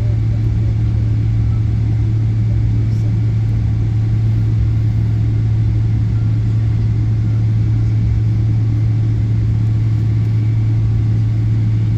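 Jet airliner cabin noise heard from inside the cabin: a steady, loud low drone of engines and airflow that holds constant without rising or falling.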